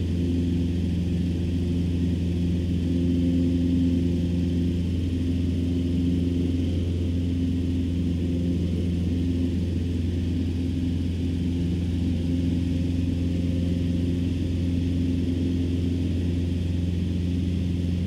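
Cessna 150's four-cylinder Continental O-200 engine and propeller droning steadily at climb power, heard inside the cabin.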